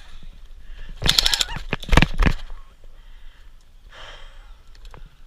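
Airsoft guns firing short rapid full-auto bursts about a second and two seconds in, followed by quieter field noise.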